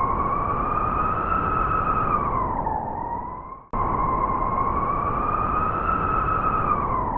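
Blizzard wind howling with a whistling tone that swells and sags slowly in pitch over a deep rushing roar. About halfway through it cuts off and restarts with the same rise and fall, as a repeated loop.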